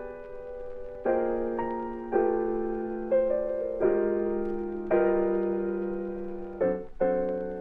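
Slow background piano music: chords struck about once a second, each one ringing and fading before the next.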